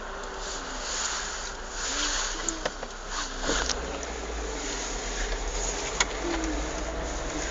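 Peugeot 306 Cabriolet 1.6i four-cylinder petrol on the move, with a steady low rumble of engine and road noise and a few sharp clacks a couple of seconds apart. The clacks are the knocking noise the car makes when accelerating in a straight line.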